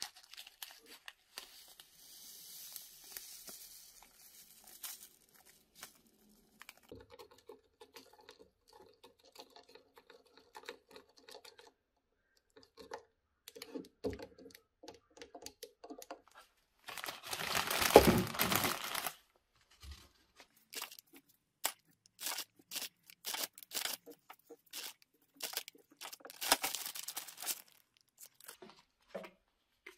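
A thin plastic bag crinkling and rustling as gloved hands handle it, with scattered small taps and clicks. The loudest stretch is a rustling burst lasting about two seconds, a little past halfway.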